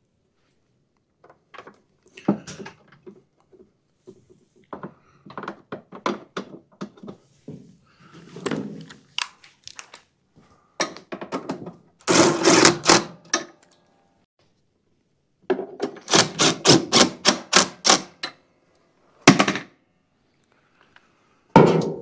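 Hands refitting plastic and metal parts on a Toro TimeMaster walk-behind mower: scattered knocks and clunks, a denser clatter about halfway through, and a run of about a dozen quick, evenly spaced clicks about three-quarters of the way through.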